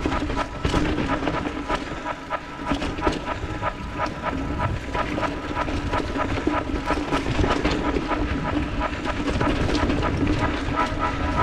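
Mountain bike riding fast down a dirt singletrack: tyres running over dirt and the bike rattling and clicking over bumps, with a steady buzzing whine underneath.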